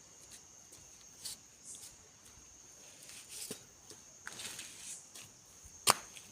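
Night insects, likely crickets, keeping up a steady high trill, with scattered rustling steps and one sharp, loud click near the end.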